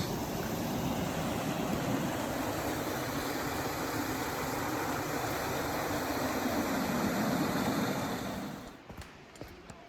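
Creek water rushing over rocks, a steady loud noise that cuts off abruptly near the end.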